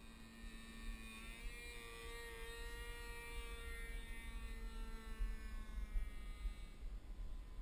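Evolution GX10 10cc two-stroke petrol engine of a Precedent T180 RC model plane buzzing in flight, its pitch shifting slightly as the plane moves across the sky. A low wind rumble on the microphone runs underneath.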